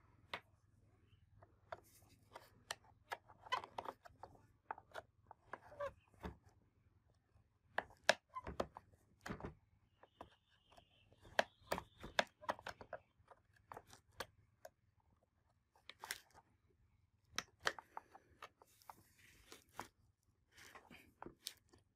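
Long screwdriver working a rusted screw in the motor housing of an old Makita angle grinder: irregular sharp clicks, scrapes and knocks of the tool on metal and plastic, with a high squeak for a few seconds about ten seconds in.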